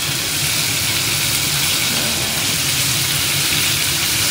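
Breaded chicken pieces deep-frying in hot oil on high heat, nearly done: a steady, dense sizzle with a low steady hum underneath.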